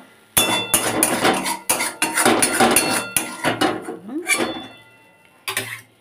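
A spatula scraping and knocking around the inside of a metal kadai, scraping out the last bits of fried green tomato: a quick run of scrapes and clinks with a short metallic ring, stopping after about four seconds, then one more brief clatter near the end.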